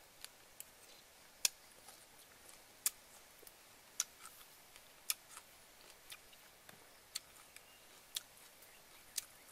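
A person eating: a row of short, sharp smacking clicks, about one a second, while chewing a spoonful of fish salad.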